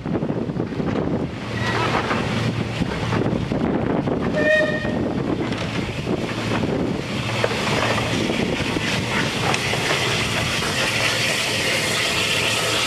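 Goods wagons of a steam-hauled freight train rolling past, wheels clattering and rumbling over the track. A short whistle sounds about four and a half seconds in. Near the end a brighter hiss builds as the steam locomotive, Bulleid light Pacific 34007 Wadebridge, draws near.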